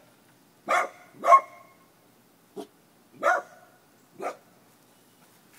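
Small dog barking: five single barks at uneven intervals, one of them faint.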